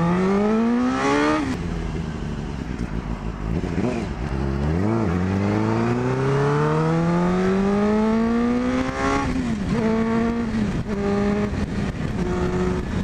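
Suzuki GSX-R600 K1's inline-four engine pulling through the gears, its pitch climbing steadily and dropping sharply at upshifts about a second in and again around nine seconds in, with a brief dip near five seconds. Near the end the engine note breaks into short pulses at a steady pitch. Wind rushes over the helmet-mounted camera underneath.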